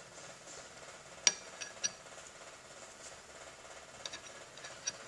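Stainless steel pump cylinder clinking against the metal pump housing as it is handled and set in place. One sharp, ringing metallic clink comes about a second in, followed quickly by two lighter ones, and a few faint taps come near the end.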